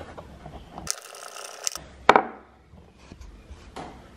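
A bolt being pulled out of a hydraulic handbrake's master cylinder mounting: a brief scraping hiss about a second in, then one sharp clunk at about two seconds, and a few light ticks after.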